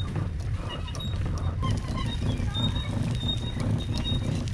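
Kayak cart wheels rolling over asphalt under a loaded fishing kayak, a continuous low rumble with rattling of the mounted gear, and short high chirps over it.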